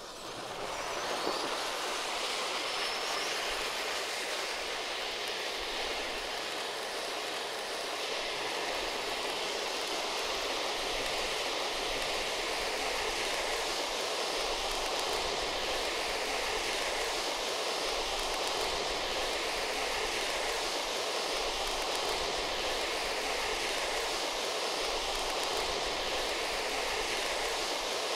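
Three silver pyrotechnic stage fountains (Maxsem MF00-109) hissing steadily as they spray sparks. The hiss builds over the first second or so as all three catch, then holds level.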